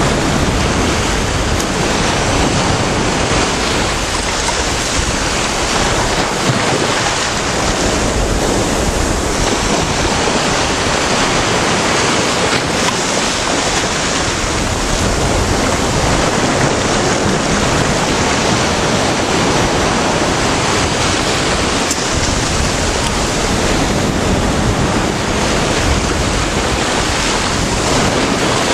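Sea waves breaking and washing up the shore in shallow surf, a steady loud noise, with wind buffeting the microphone.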